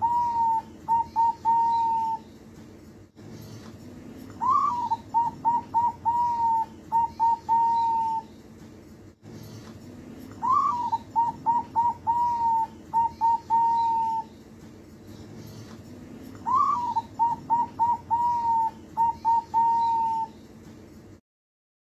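Young zebra dove (perkutut), about two months old, singing its rhythmic cooing song. Each phrase is a rising opening coo followed by a quick string of short coos and a few drawn-out ones, repeated about every six seconds: the tail of one phrase, then three full phrases.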